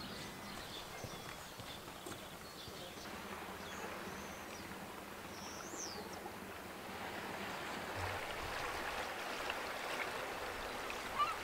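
Faint seaside ambience: a soft, steady wash of water with a few faint bird calls, one rising and falling about six seconds in. The wash grows a little fuller in the second half.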